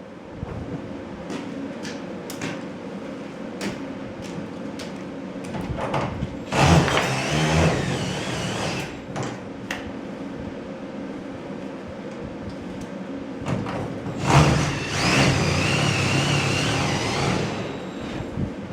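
Power drill driving screws in two runs of about three seconds each, with a wavering motor whine. Knocks and clicks of hardware being handled come between the runs.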